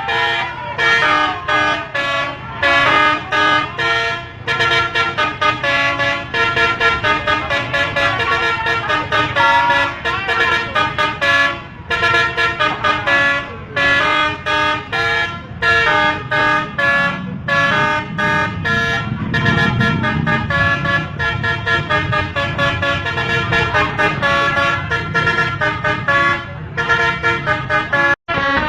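Indonesian bus telolet horn, a set of air horns tuned to different notes, playing quick melodic runs of short toots, note after note with brief breaks between phrases, over a low rumble.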